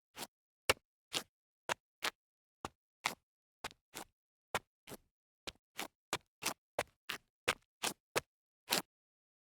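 A series of short, sharp ticks with dead silence between them, irregularly spaced at about two to three a second and coming a little faster in the second half.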